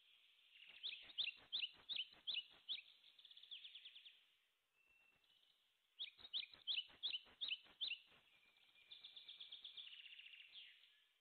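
Small bird singing: two runs of quick, sharp downward chirps a few seconds apart, then a faster trill near the end.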